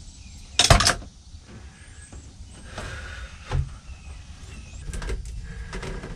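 Hands and a metal pick tool working in a boat's engine compartment: a loud clatter about half a second in, a dull thump midway, then scattered small knocks and clicks as the tool works at a rubber coolant hose.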